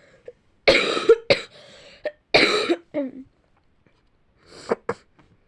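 Coughing from a girl who is ill: two harsh bouts about a second and a half apart, then a smaller one near the end.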